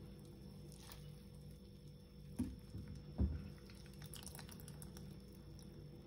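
Soaked dried mushrooms lifted out of their soaking water by hand: faint drips and small splashes, with two soft knocks about two and a half and three seconds in.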